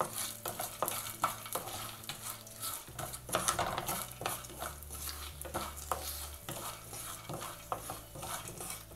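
Wooden spatula stirring and scraping roasted split chickpeas, shallots and chillies around a non-stick kadai, with the light sizzle of hot oil underneath. The scrapes and taps come irregularly as the mix is tossed.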